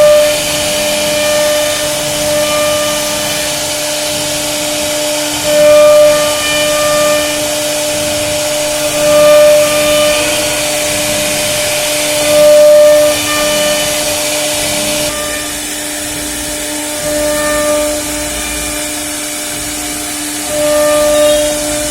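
CNC router spindle running with a steady whine and the hiss of cutting, swelling louder several times as the bit works through the material.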